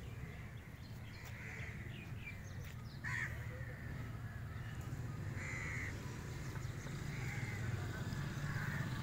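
Crows cawing, several short harsh calls a second or two apart, the loudest about three seconds in, over a steady low hum.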